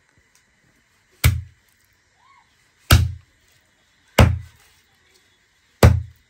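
A heavy dao chopper chopping chicken pieces on a wooden log chopping block: four hard chops, roughly one every one and a half seconds, each a sharp strike with a dull thud into the wood.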